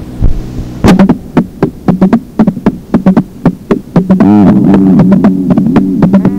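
Electronic music: a steady low synthesizer tone under quick, sharp percussive notes, several a second, with a warbling pitch-bending swell about four seconds in.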